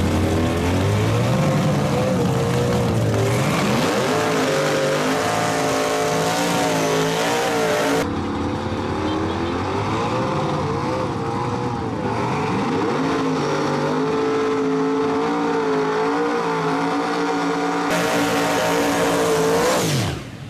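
Procharged Chevy Nova drag car's engine revving hard at the starting line, its pitch rising and dipping again and again. Near the end it launches and pulls away, the pitch falling as it goes.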